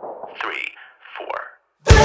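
Background music fades out, followed by two brief, quieter sounds and a moment of silence; then a new rock music track starts abruptly near the end.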